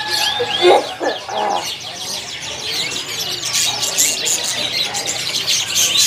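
Many caged canaries chirping and twittering at once, a dense chatter of short high calls that overlap throughout, busiest about halfway through.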